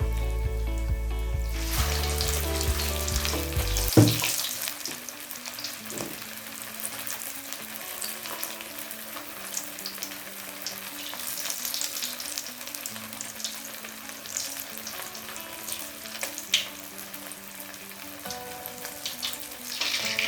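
Food sizzling and crackling as it fries in hot oil, with music behind it; the music is loud at first and drops sharply after a knock about four seconds in.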